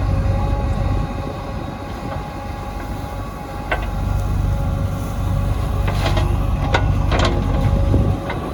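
JCB 3DX backhoe loader's diesel engine running steadily under load, with a steady whine over it. Sharp metal clanks break in once about halfway through, then several more close together in the last few seconds.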